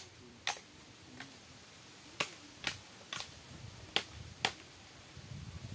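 Sharp cracks of bamboo stems being worked, about eight of them at irregular intervals half a second to a second apart.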